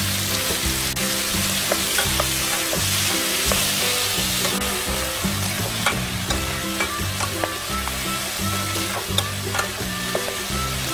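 Peeled cherry tomatoes and chopped onion sizzling in a frying pan as a wooden spatula stirs them, with scattered light knocks of the spatula against the pan.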